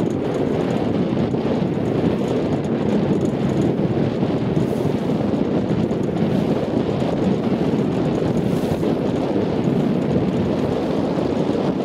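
Steady wind buffeting the microphone, a dense low rush with no breaks.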